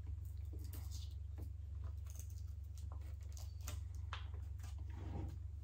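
Light clicks and taps of a spoon and small plastic pudding cups being handled, over a steady low hum.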